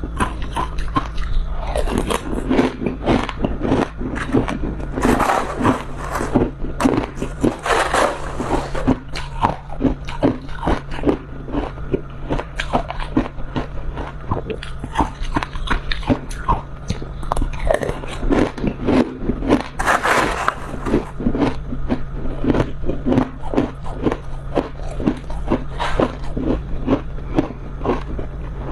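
Freezer frost being bitten and chewed, a continuous run of crisp, irregular crunches, several a second, over a steady low hum.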